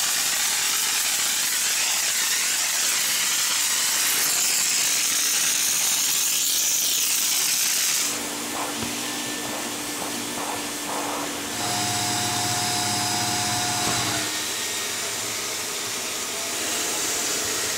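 Loud hiss of an upholstery cleaning machine's spray wand misting cleaning fluid onto sofa fabric for wet cleaning. About eight seconds in the hiss drops and a steadier machine hum with a few held whining tones takes over, the cleaning machine and its extraction wand running.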